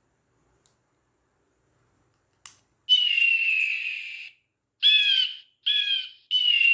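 A sound effect played by an RC MP3 sound module through a small speaker: a click, then a long high call falling slightly in pitch, two short calls, and another long call.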